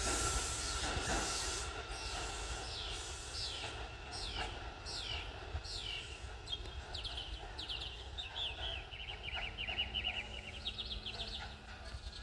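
A train's noise fades away over the first couple of seconds, then a songbird sings: a run of short falling notes about twice a second, turning into a faster trill, over a steady low rumble.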